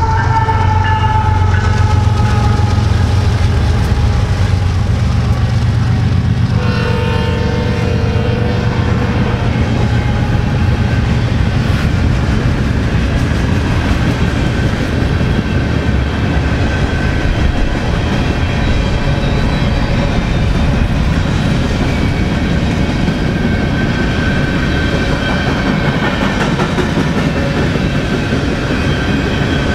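BNSF freight train running past close by: a heavy, steady rumble of diesel locomotives and rolling cars, with thin high whining tones above it. A short horn blast sounds about seven seconds in.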